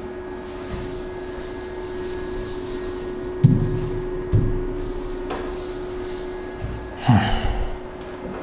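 Writing being wiped off a board: rubbing strokes across the board's surface in two runs of about two seconds each, with a faint steady hum underneath and a few soft thumps.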